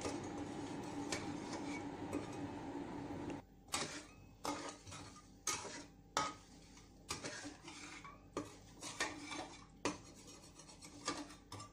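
Metal spatula stirring coconut milk and brown sugar in a non-stick wok, scraping the pan bottom. A steady hum and hiss sits under it for the first three seconds or so and cuts off suddenly, after which the strokes are heard as separate scrapes and taps, about one or two a second.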